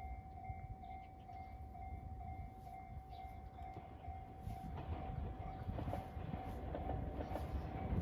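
Japanese level-crossing warning bell ringing a steady electronic ding a little over twice a second. The low rumble of an approaching train rises under it from about halfway through.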